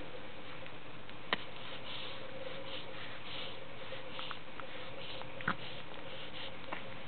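A baby's soft snuffly breathing and sniffs over a steady background hiss and faint hum, with two sharp clicks, one just over a second in and one about five and a half seconds in.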